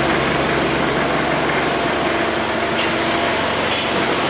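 Machinery running steadily: a constant mechanical hum with even noise over it, unchanging throughout.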